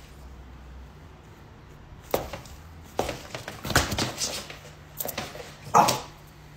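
French bulldog puppy scrambling off across a wooden floor amid a few sharp thumps from a person hopping toward it, then giving a short bark near the end.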